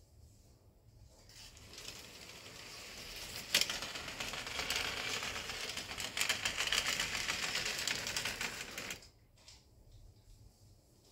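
HO scale Metrolink model train running along the track with a fast clicking rattle. It grows louder as it comes close, then cuts off suddenly about nine seconds in.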